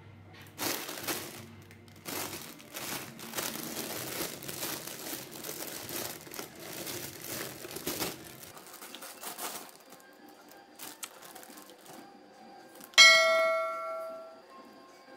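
Plastic bag of soybean sprouts crinkling and rustling for several seconds as it is handled and tipped out. Near the end comes a single loud bell-like ding that fades over about a second and a half.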